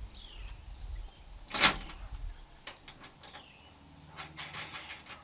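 Small hardware being handled while a screw is fitted into a chrome exhaust-tip flange on a truck's bed side: one sharp clack about a second and a half in, then a run of small clicks near the end. A bird repeats a short falling chirp in the background.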